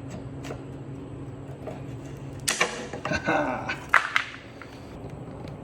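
Cutters snipping through heavy plastic straps: sharp snaps about a second and a half apart, with a short rustle between them. A steady low hum runs underneath until the first snap.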